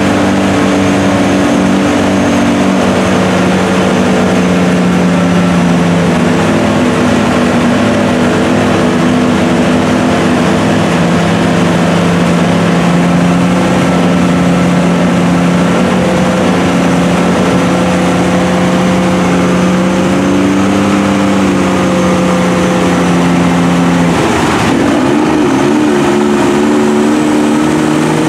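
Dodge Ram pickup's engine running under load at fairly steady revs as the truck crawls through deep mud, its note shifting and wavering about 24 seconds in.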